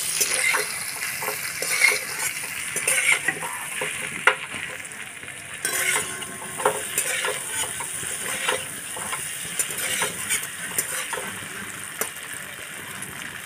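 Spice-coated hard-boiled eggs sizzling as they fry in a little oil in a steel kadai. A metal spatula scrapes and clinks against the pan again and again as the eggs are turned.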